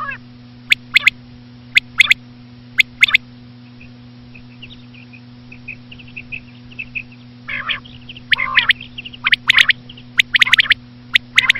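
Common quail calling. Short, sharp notes come in pairs about once a second at first, then soft twittering, then a denser run of loud calls near the end.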